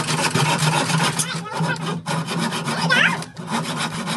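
Hand saw cutting through a wooden board, with quick, steady back-and-forth strokes rasping through the wood and two short breaks in the strokes.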